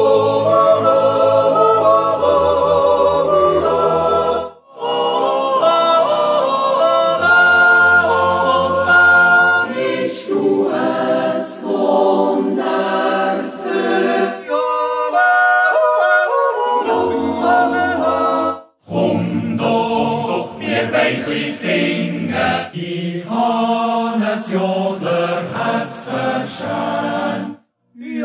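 Swiss yodel choirs singing a cappella Naturjodel (Jutz): low sustained chords under high yodeled melody lines. The excerpts are cut together, breaking off abruptly about 4.5 s and 19 s in and again near the end.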